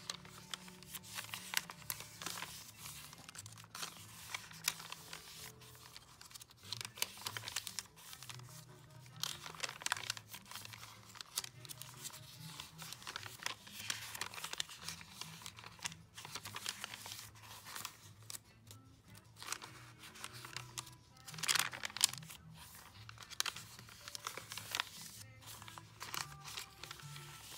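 Paper pages of a thick, painted and taped journal rustling and crinkling as they are turned one after another, over quiet background music.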